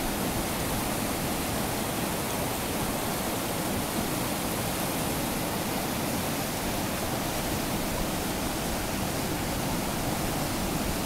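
Brown floodwater pouring over a low concrete dam and churning below it: a steady, even rushing noise.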